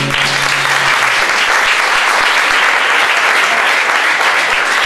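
Audience applauding at the end of a song. The last low notes of the acoustic guitar's final chord ring on and die away in the first second.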